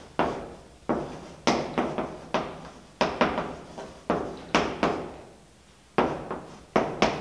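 Chalk writing on a blackboard: a series of sharp taps and short scrapes as letters are stroked on, each ringing on briefly. There is a pause about five seconds in.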